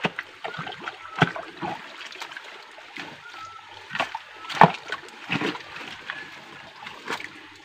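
Water splashing in a shallow stream: several separate splashes, the loudest about four and a half seconds in, over the steady trickle of running water.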